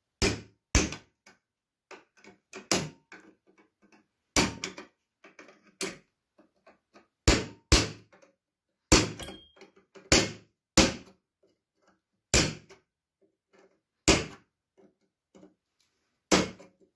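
Ball-peen hammer striking a punch held against a steel bracket, about fourteen sharp blows at irregular intervals, some in quick pairs. The punch is driving out the rest of a drilled-out rivet.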